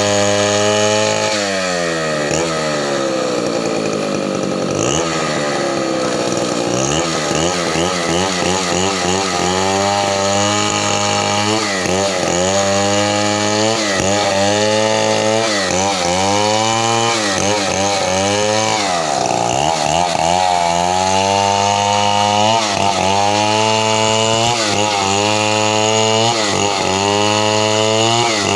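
Chainsaw engine running at high speed, its pitch sagging and recovering again and again as it bogs under load and picks back up, the pattern of a saw working through a cut in wood.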